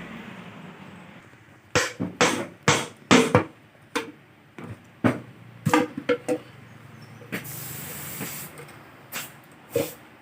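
Irregular sharp metal knocks and clinks, about a dozen over several seconds, from tools and engine parts being handled during an engine teardown, with a short hiss a little before the end.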